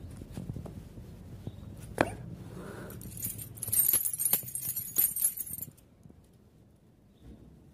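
Crackling, rustling and sharp clicks of dry palm fibres and fronds as a cat pushes its head and paws into the dry base of a palm. The crackling is thickest from about three seconds in and stops abruptly before six seconds, with a single sharp click about two seconds in.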